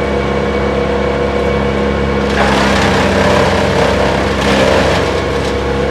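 Vermeer BC1000XL brush chipper running steadily, with a stretch of wood crunching and splintering through it about two seconds in that lasts about two seconds, and a shorter one near the end.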